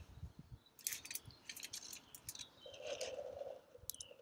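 Light clicks and taps of a plastic craft-paint bottle being handled, then a soft squishy sputter from about three seconds in as pink paint is squeezed from the bottle into a coffee can.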